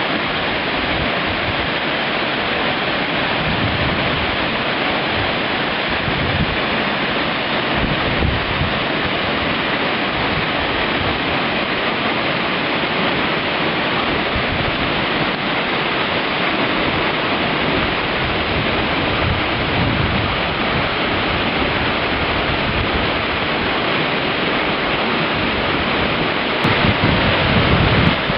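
Waterfall pouring into its plunge pool: a steady, dense rush of falling water. The low rumble grows in the last couple of seconds.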